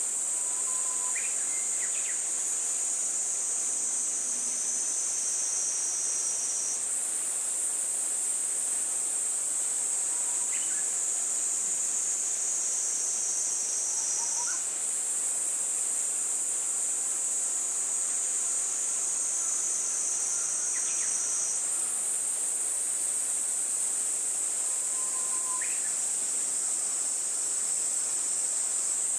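Insects trilling steadily in a loud, high-pitched chorus, shifting slightly in pitch every several seconds. Faint short chirps come in every few seconds.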